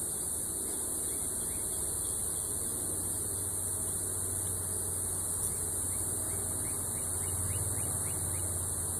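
Honeybees humming around an open hive and a frame of comb, under a steady high hiss.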